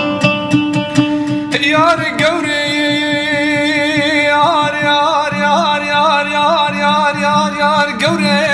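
A Kurdish folk song: a man's voice enters about a second and a half in and holds a long ornamented phrase without clear words, wavering and bending in pitch over a plucked string instrument. The plucked notes stand out alone at the start and again near the end.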